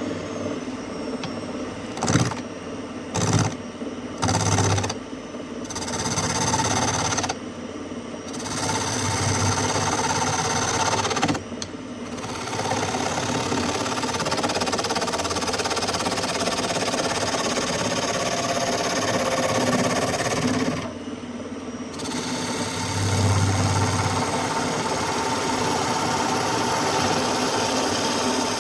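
Small wood lathe running while a chisel cuts a small wooden workpiece held on a homemade screw-point drive centre. There are several short cuts in the first few seconds, then longer steady cutting broken by brief pauses.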